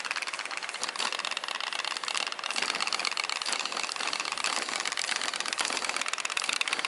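Toy putt-putt (pop-pop) steam boat's candle-heated engine popping rapidly and steadily, an even run of quick putts.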